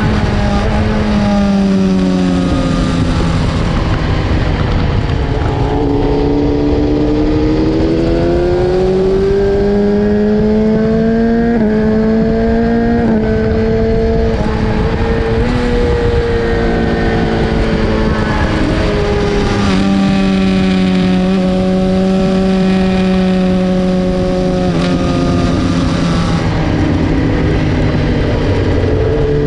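BMW S1000RR inline-four engine at racing speed, revs climbing and falling repeatedly with abrupt steps in pitch at the gear changes, over loud wind rush.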